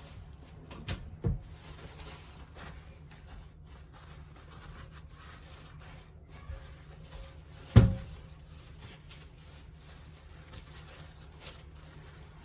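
Household handling knocks over a low steady hum: two light knocks about a second in, scattered soft clicks, and one loud thump, like a cupboard door shutting, about eight seconds in.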